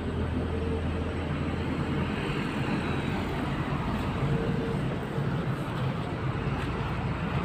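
Steady low outdoor rumble with no distinct sounds standing out.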